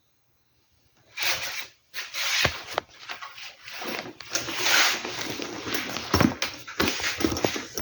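Silent for about a second, then irregular rustling and handling noise with a few knocks, as a fabric bag and its packaging are moved about.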